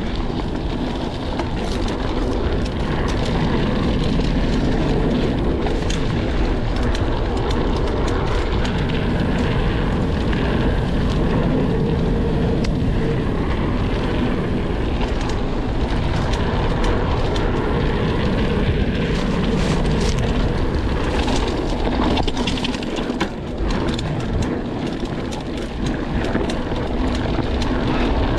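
Mountain bike riding on a dirt singletrack: steady wind rushing over the action camera's microphone and knobby tyres rumbling over dirt. Frequent clicks and rattles come from the bike and chain over bumps.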